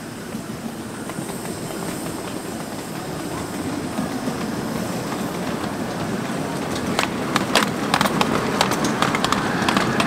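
Ride-on miniature locomotive and riding car rolling closer along the track, growing louder. From about seven seconds in, as it passes close by, its wheels click sharply and unevenly over the rail joints.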